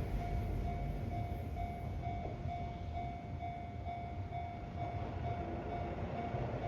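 Japanese level-crossing alarm ringing in an even pulse, a little over two strokes a second, over the low rumble of a Keihan Ishiyama-Sakamoto Line electric train running past the crossing. The rumble swells again near the end.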